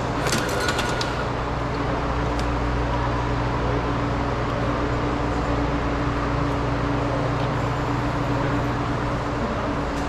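Steady low mechanical hum of a train station hall, with a cluster of sharp clicks and a short high-pitched beep in the first second.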